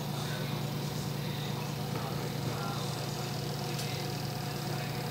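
A steady low mechanical hum, as from a motor or engine running, that holds level without change; one faint click about four seconds in.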